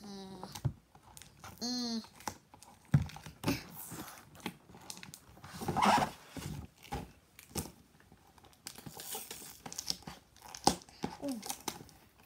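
Cardboard and plastic toy packaging being crinkled, scraped and torn by hand, with scattered sharp clicks as fingers and nails pry at a box that is hard to get open.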